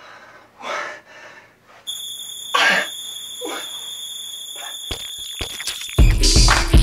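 A man's wheezing coughs and groans in short bursts, with a steady high-pitched tone over them from about two seconds in. Loud music starts near the end.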